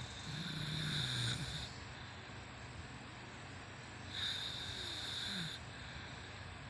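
A woman snoring in her sleep: two loud breaths about three and a half seconds apart, the first carrying a low, steady snore.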